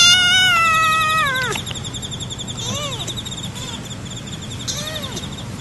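Very young kitten meowing: one long, loud meow that falls in pitch at its end, then two shorter, fainter meows.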